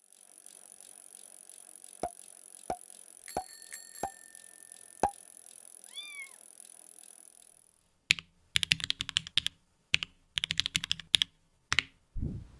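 Mechanical keyboard: a few single key clicks over a steady hiss, then fast typing in several quick bursts of clacks in the second half, ending with a low thump.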